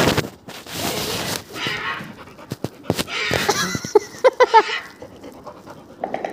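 Recorded animal calls played through a small speaker: noisy bursts, then a run of short pitched calls about four seconds in, and a fast even pulsing that starts near the end.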